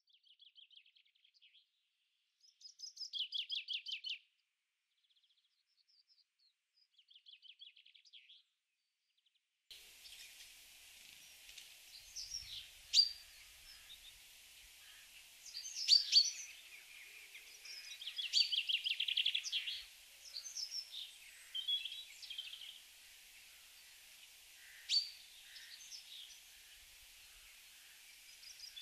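Garden songbirds singing: a few short, rapid trills with silence between them, then from about ten seconds in a busier mix of chirps and trills from several birds over a steady hiss.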